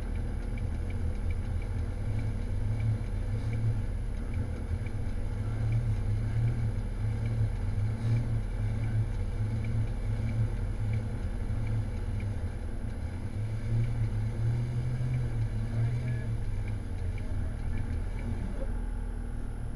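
Jeep Wrangler engine running at low revs throughout, a steady low drone that swells slightly a few times, as the Jeep idles and crawls on a rock trail with its winch line hooked up.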